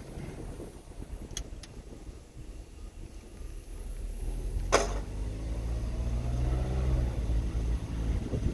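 Car engine and road rumble heard from inside the cabin. The engine note rises and grows louder as the car speeds up from about four seconds in. A sharp click sounds about halfway through.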